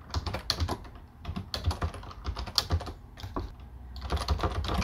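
Computer keyboard typing: quick, irregular key clicks in uneven runs with short pauses between them.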